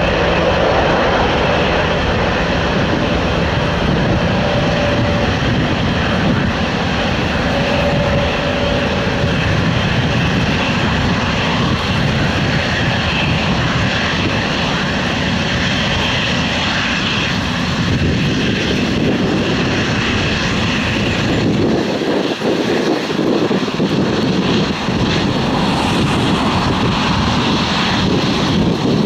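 Boeing 787-8's GEnx-1B turbofans at takeoff thrust during the takeoff roll, a steady loud jet noise as the airliner heads away down the runway. A thin whine is heard in the first several seconds, and the deep rumble thins out about three-quarters of the way through.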